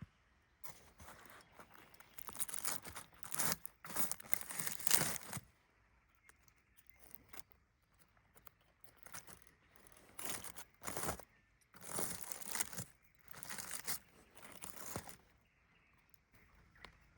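Irregular bursts of crinkling and tearing, something dry or papery being handled, in two clusters with quieter stretches between.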